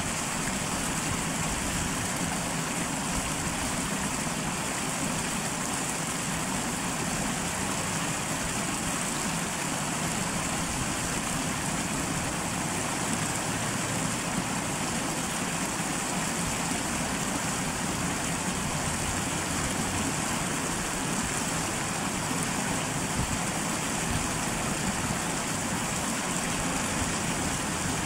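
Tenryū Hamanako Railroad single-car diesel railcar running at a steady speed: an even low rumble under a constant hiss, with no change in level.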